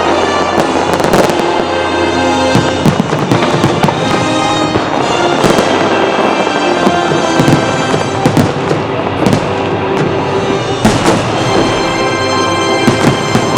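Fireworks bursting, with many sharp cracks and crackles coming in quick, irregular succession, over music that plays throughout.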